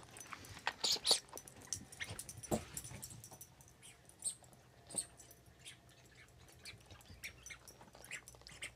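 Small dog playing with a toy: scattered short clicks and scuffles, busiest in the first few seconds and then sparser.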